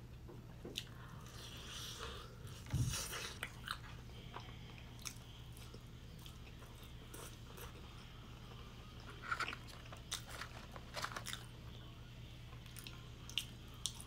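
Crisp fried chicken breading crunching as it is bitten and chewed close to the microphone, in short crackly bites, the loudest about three seconds in and more around nine to eleven seconds. A faint steady low hum runs underneath.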